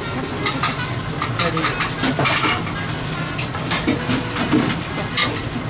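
Restaurant ambience: a steady sizzling hiss with faint background voices, and scattered light clicks of chopsticks against a ceramic rice bowl.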